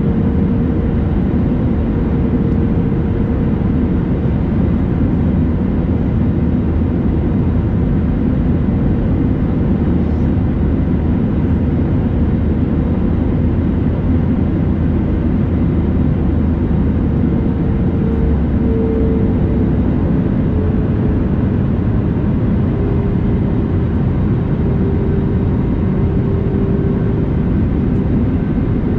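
Steady flight noise of an Airbus A320neo airliner: a continuous low rumble of engines and airflow, with a faint steady whine that sinks slightly in pitch in the second half.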